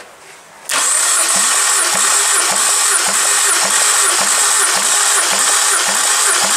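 BMW N46B20B 2.0-litre four-cylinder petrol engine turned over on its starter for a compression test of cylinder one. The cranking starts suddenly about half a second in: a steady starter whine with an even pulse about twice a second. The cylinder builds to twelve kilograms (about 12 bar) on the gauge.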